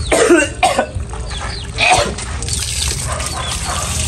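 A man coughing a few times in the first two seconds, then water running steadily from an outdoor tap.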